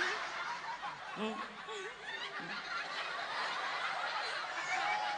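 Audience laughing, a steady wash of many people's laughter with scattered chuckles standing out from it.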